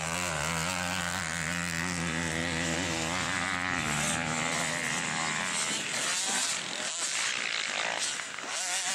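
Motocross dirt bike engines revving as bikes ride past close by, the pitch wavering up and down with the throttle. About four seconds in, the sound turns rougher, a mix of several bikes running at once.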